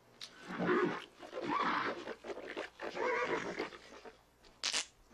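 A man's hoarse, rasping throat sounds, three in a row, followed near the end by a short hiss.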